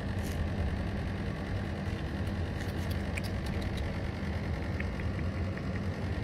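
A steady, low mechanical hum like a motor or engine running, with a few faint short high chirps in the middle.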